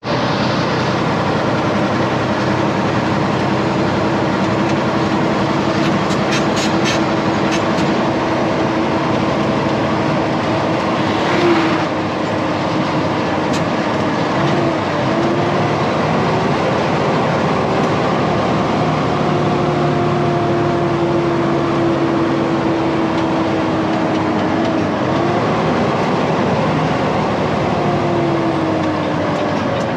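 Steady engine and road noise inside the cab of a Peterbilt heavy wrecker truck driving along. Its drone drifts slowly up and down in pitch, with a brief louder swell about twelve seconds in.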